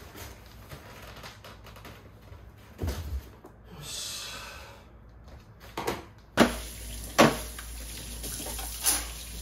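Flattened cardboard boxes being gathered and tied with twine: a few dull knocks and a soft scraping rustle of cardboard. A little past halfway the scene changes to kitchen work at a wooden cutting board, with a few sharp knocks.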